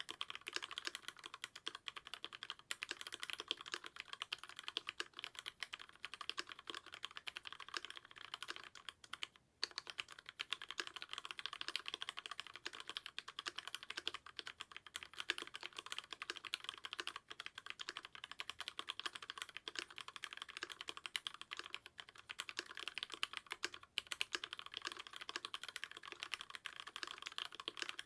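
Archon DX2 mechanical keyboard with lubed Cherry MX Black linear switches (65 g springs, aluminium plate, silicone dampening) being typed on continuously in a dense run of keystrokes, with a brief pause about a third of the way through.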